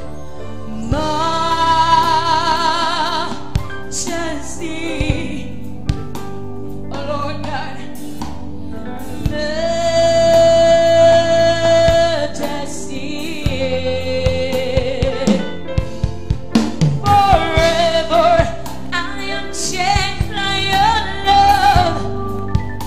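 Live gospel singing: a woman's voice holds long notes into a microphone, several with a wide vibrato, over steady sustained instrumental accompaniment.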